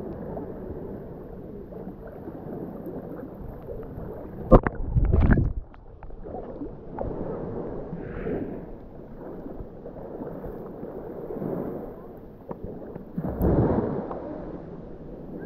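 Small sea waves sloshing and washing in over a pebble shoreline, swelling and easing every few seconds. A sudden loud thump with a slosh about four and a half seconds in is the loudest moment.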